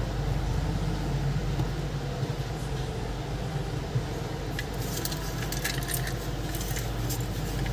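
Small hard parts clicking and clinking as a mini Bluetooth speaker's case and its removed screws are handled, with a scattering of light clicks in the second half. A steady low hum lies under it.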